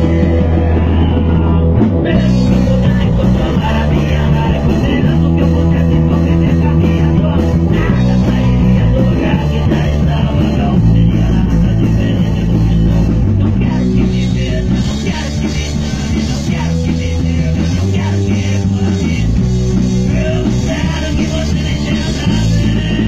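Rock music with electric guitar and a bass line stepping between notes about once a second, playing loud and steady.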